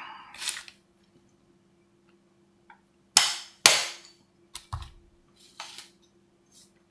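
Metal hand tools being handled on a workbench: two sharp knocks about half a second apart a little after three seconds in, then a few lighter clacks as a ball-peen hammer and a pin punch are set down on a rubber bench mat.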